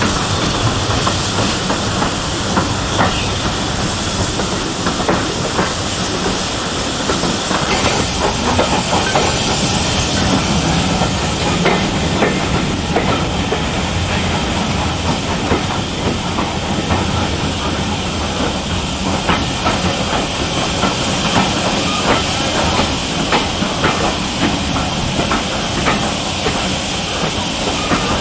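Steam train: a steady loud hiss of steam with many small clicks and knocks from the running gear and rails.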